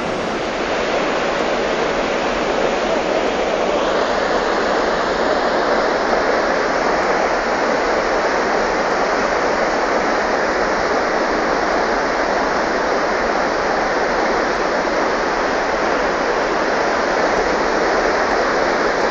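Steady rushing of a muddy flash flood, fast-flowing floodwater running across a wide river bed.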